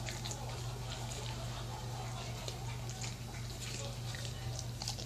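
A dog licking and chewing egg crumbs off a floor: irregular small wet clicks and smacks of tongue and mouth, over a steady low hum.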